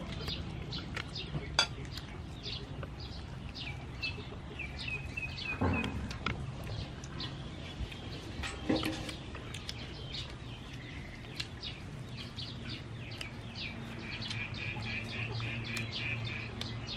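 Small birds chirping, with many quick short notes and bursts of rapid trilling, over a low steady rumble. A few sharp clicks and knocks come through, the loudest about one and a half seconds in, with others near six and nine seconds.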